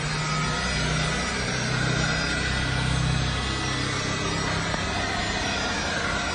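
Black+Decker 18V cordless leaf blower running steadily: a continuous rush of air with a motor whine.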